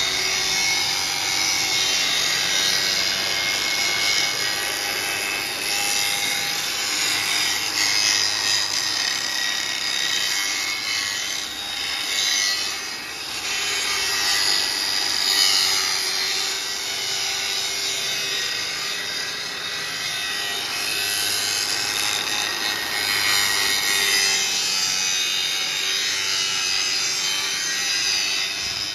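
Electric angle grinder with an abrasive disc grinding into the steel ball-socket housing of a tie rod end: a steady, loud grinding hiss with a faint motor whine that rises and falls a little as the disc bites into the metal.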